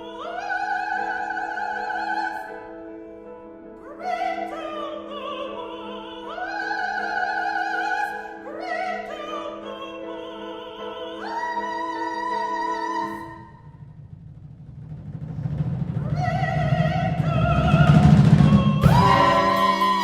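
Chamber ensemble with a solo singer. The voice holds a series of long notes with vibrato over a sustained low chord. About thirteen seconds in, a low rumbling roll swells steadily louder as the ensemble builds to a loud accented chord near the end.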